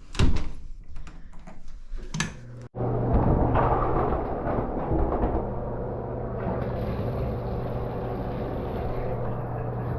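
A few knocks and clicks of handling, then, after a sudden cut, a shower running with a steady hiss of spraying water over a constant low hum.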